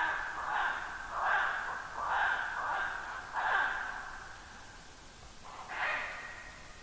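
Ural owl barking: a run of harsh, rough barks about one every 0.7 seconds, then a pause and one more bark near the end.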